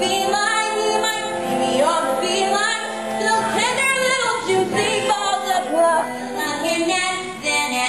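A female singer sings a musical-theatre song with vibrato over instrumental accompaniment.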